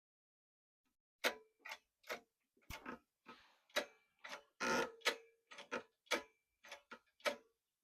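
A run of sharp, irregular metallic clicks and taps, about two a second, some with a short ring: metal parts being handled on the mini bike's carburetor and throttle linkage.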